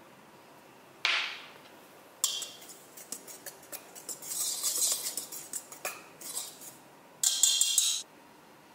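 A small wire whisk stirring dry flour mix in a stainless steel bowl, its wires scratching and clinking against the metal in irregular strokes, with a quick run of fast strokes near the end.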